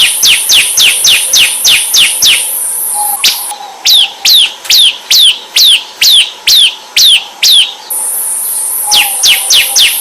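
Ciblek (bar-winged prinia) song: rapid, loud series of sharp notes sliding downward in pitch, about four a second, over a high buzzy trill. A gap of a second or so comes a little past two seconds in. A slower run of longer, sweeping downward notes follows until about eight seconds, and the fast series starts again near the end.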